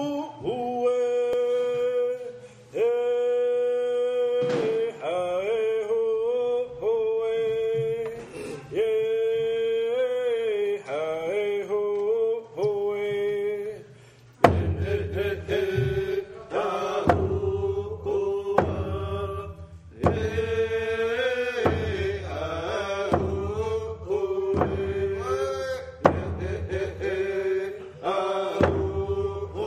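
Traditional Tseshaht paddle song: men chanting on vocables such as "haa huu", in long held and sliding notes. A low pulsing accompaniment joins the singing about halfway through.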